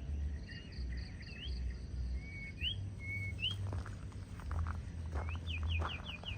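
A huýt cô decoy bird singing short, clear whistled notes, several sliding upward, ending in a quick run of about five rising whistles. There are a few soft knocks partway through.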